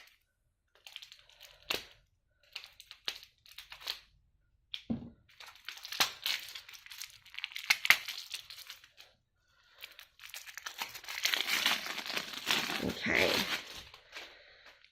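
Crinkling and rustling of plastic packaging as a rolled diamond painting canvas is unwrapped, with scattered sharp clicks of handling; the crinkling comes in short spurts and grows dense and continuous from about ten seconds in.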